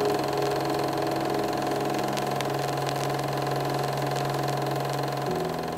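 Steady drone of held low tones, shifting to a new set of pitches about five seconds in, with a few faint clicks over it.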